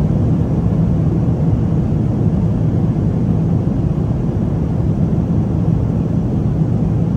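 Steady, loud low rumble of a passenger jet's engines, heard from inside the cabin.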